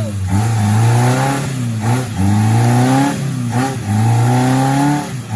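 Off-road 4x4's engine revving hard in three long rising pulls, its pitch dropping briefly between each, as if the throttle is worked repeatedly.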